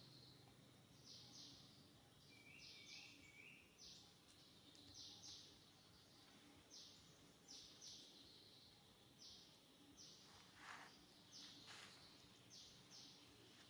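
Faint outdoor ambience of short, high chirps, mostly in pairs, repeating every second or so. About two and a half seconds in there are three short lower notes, and near the end two brief calls sweep downward.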